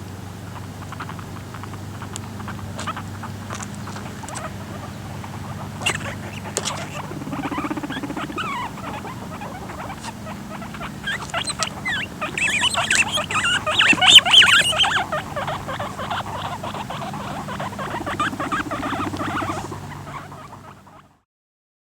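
Guinea pigs squealing and squeaking in a scuffle as a male tries to mate with a female who fights him off. Many short high squeaks build to a loud burst of shrieking about twelve to fifteen seconds in. Lower rumbling bursts come about seven seconds in and again near the end, over a steady low hum.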